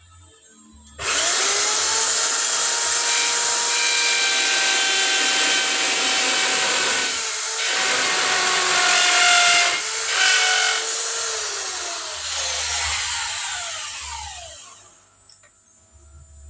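Small electric power saw starting up with a rising whine and cutting wood, its note dipping briefly under load twice, then winding down with a falling whine and stopping near the end.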